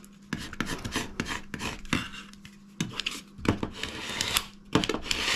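A burnishing tool rubbed firmly back and forth over transfer tape laid on self-adhesive vinyl, a string of short scratchy strokes. The burnishing presses the vinyl onto the transfer tape so that it lifts off its backing cleanly.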